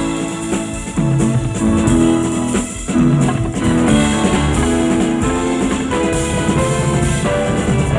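Instrumental 1970s TV theme music played by a band, guitar and drum kit over held melody notes, with no sound effects laid over it.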